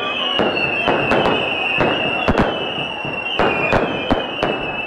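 Aerial fireworks bursting in quick succession: sharp bangs, two or three a second, over a steady high whistle.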